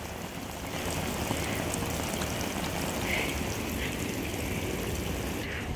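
Water spraying and pattering down steadily.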